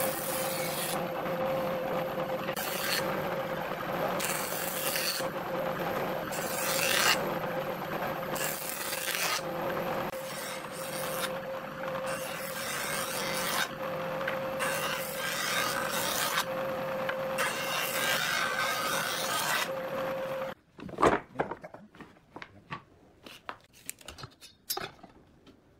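Woodworking jointer running with a steady motor hum, its cutterhead shaving a pallet-wood board in repeated passes, a surge of cutting noise about every one to two seconds. About 20 seconds in it cuts off to quiet, with a few light knocks of wooden pieces being handled on a workbench.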